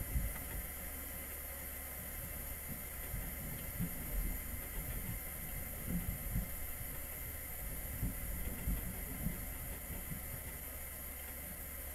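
Steady low rumble with hiss inside a parked truck's cab, with a few faint low thumps.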